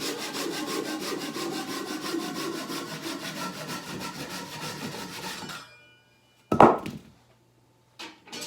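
Ryoba Japanese pull saw cutting through a cedar 4x4, steady rapid rasping strokes that stop suddenly a little over halfway through. About a second later comes one loud thump, the loudest sound, then a couple of lighter knocks near the end.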